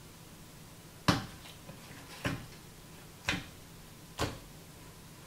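Mixed slime being pressed and played with by hand, giving four sharp clicking pops about a second apart.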